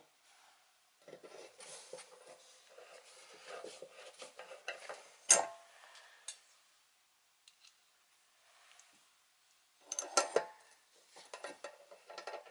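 Hand screwdriver turning a number 6 stainless steel wood screw through a metal mounting bracket into the aluminum cabinet: a few seconds of scraping turns with a sharp click about five seconds in. Light metallic clinks and clatter follow near the end.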